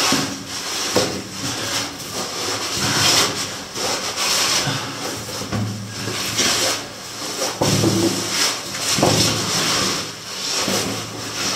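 A person's clothing and boots scraping and rubbing against rock while squeezing and crawling through a tight cave crevice, in irregular shuffles.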